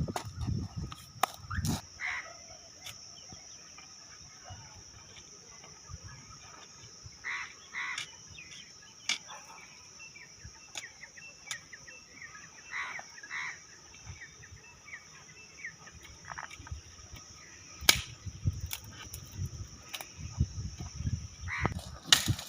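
Forest ambience: a steady high drone of insects, with scattered short bird calls and sharp clicks. Low thumps, as of handling or movement, come near the start and again near the end.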